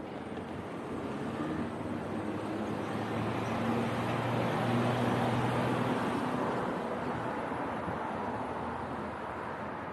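Road traffic passing close by: the engine hum and tyre noise of passing cars swell to a peak about halfway through, then fade away.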